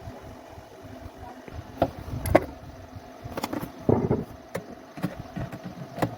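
Irregular sharp knocks and clicks, about seven of them, some with a short ring and the loudest about two and four seconds in, over a steady background hum.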